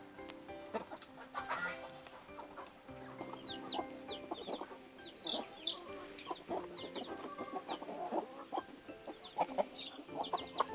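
Farmyard poultry clucking, with many short high chirps.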